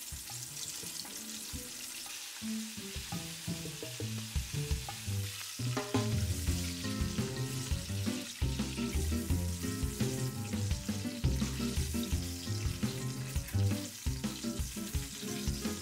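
Hot oil sizzling and bubbling steadily as flour-and-egg-battered chicken pieces deep-fry in a pot, over background jazz samba music that gets louder about six seconds in.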